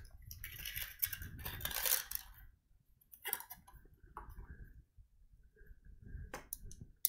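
A small clear plastic parts box being handled and small screws and plastic parts tipped out onto a cutting mat: a patch of rattling and clinking lasting about two seconds, then a few light clicks and taps.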